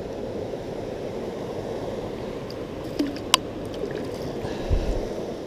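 Steady rush of flowing river water, with two sharp clicks about three seconds in and a low thump near the end.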